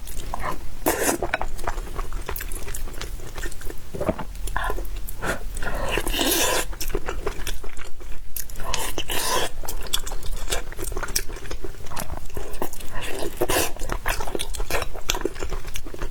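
Close-miked eating sounds: wet chewing and lip smacks, a dense run of small mouth clicks with a few longer, noisier slurps or bites.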